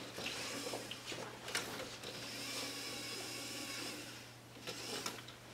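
Small LEGO competition robot's electric motors whirring steadily as it drives across the game table, with a couple of light knocks; the whine fades about four seconds in.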